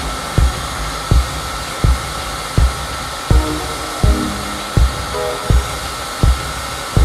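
Electric heat gun blowing steadily through a reflector nozzle, shrinking heat-shrink tubing over wire joints. Background music with a steady beat of low thumps about every 0.7 s plays over it.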